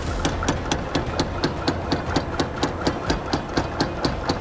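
Mechanical power hammer striking a hot steel bar in a steady run of blows, about four a second, over the low running hum of its drive.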